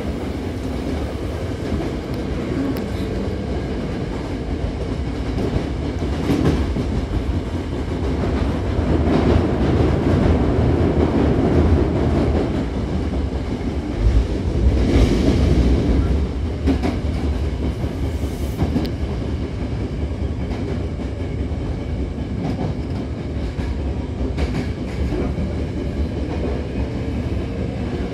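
Hankyu 7000-series electric train heard from inside the car while it runs: steady wheel-and-rail rumble with clacks over rail joints. It swells louder for several seconds in the middle, and a faint rising whine comes in near the end.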